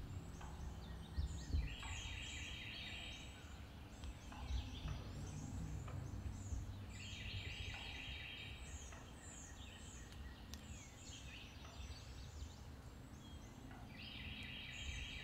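An eastern wild turkey calls three times, each call about two seconds long and about five seconds apart. Small songbirds chirp throughout.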